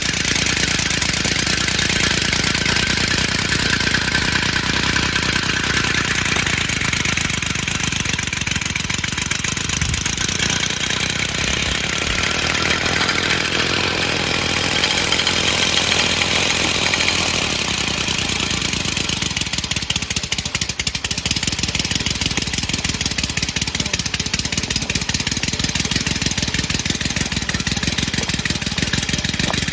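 A home-built three-cylinder compressed-air engine running steadily under load as it drives a lawnmower: a rapid pulsing of exhaust air with a continuous hiss.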